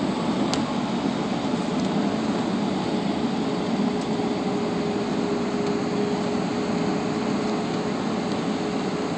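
Steady cabin noise inside a jet airliner descending on approach: an even rush of engine and airflow noise with a faint steady hum throughout.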